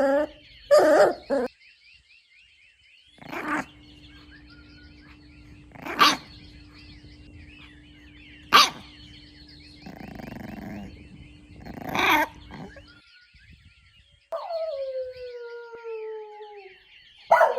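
A dog barking in single sharp barks spaced a few seconds apart, then giving a long whine that glides downward in pitch, with another whine starting near the end.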